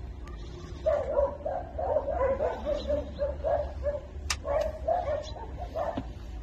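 Several newborn puppies crying with short, squeaky whimpers in quick succession. The cries start about a second in and keep going. A sharp click comes about four seconds in.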